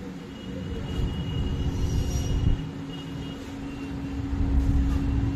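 Steady low rumble with a constant hum running underneath, like an engine or traffic nearby.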